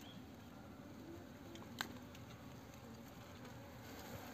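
Faint crackling and rustling as hands work wild honeycomb out of a hollow in a palm stump, with one sharp click about two seconds in and bees buzzing faintly.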